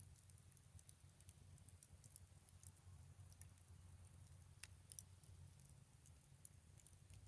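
Faint, scattered crackles of a scrap-lumber bonfire burning, with a couple of sharper pops about four and a half to five seconds in.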